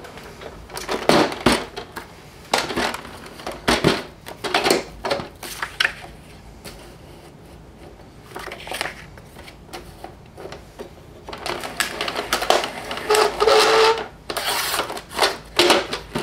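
Hand-cranked Xyron adhesive machine drawing paper through its rollers and laying adhesive on the back: clicking and rustling of the crank, rollers and paper in short bursts, with a longer run of cranking in the last few seconds.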